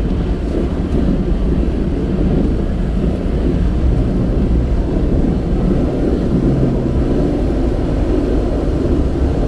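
Jeep driving up an icy, snow-covered trail, a steady low rumble of engine and tyres heard from inside the cabin.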